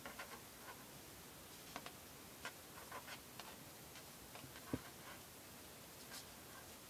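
Faint rustles and light ticks of cords being handled and threaded by fingers, over a steady low hiss, with one sharper click about four and a half seconds in.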